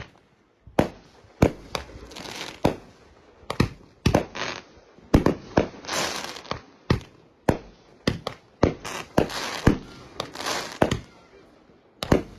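Consumer fireworks going off: an irregular string of sharp pops, about one or two a second, with crackling hiss between them.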